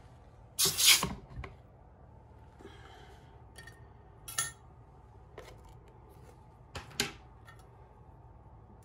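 Small handling clicks and clinks of metal tweezers against plastic tubs and the bench. The loudest is a short, noisy burst a little under a second in, followed by a few isolated sharp clicks.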